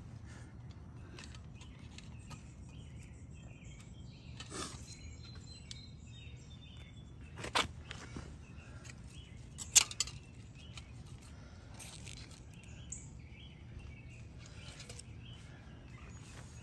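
Outdoor background ambience: a steady low rumble with faint bird chirps and a few sharp clicks, the loudest about halfway through.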